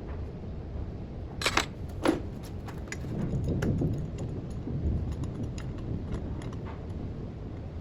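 Handling noise: two sharp knocks about a second and a half and two seconds in, then a string of lighter clicks and taps over a low rumble.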